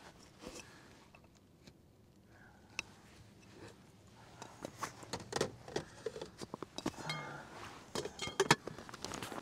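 Light clicks, knocks and clinks of cooking gear being handled at close range in a small space, sparse at first and busier in the second half.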